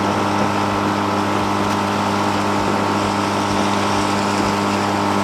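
Outboard motor of a small aluminium fishing boat (tinnie) running at a steady speed, an even drone that holds one pitch.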